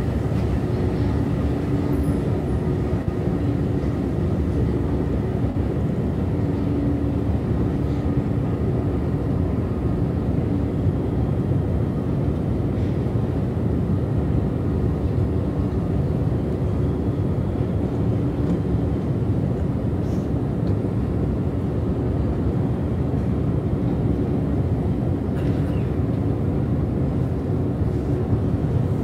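A long subway escalator running, giving a steady low mechanical rumble with a hum that comes and goes, and a few faint ticks.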